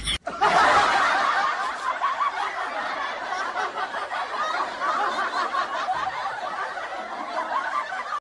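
Many people laughing at once, a dense steady mass of overlapping chuckles and snickers, starting and stopping abruptly on edits.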